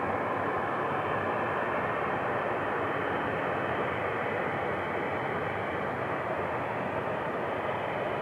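Boeing 737 jet engines at taxi power: a steady rushing jet noise with a faint high whine.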